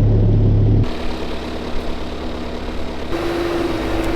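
Bobcat skid steer's diesel engine running steadily, with abrupt shifts in its sound about one and three seconds in; a steady whine joins it about three seconds in.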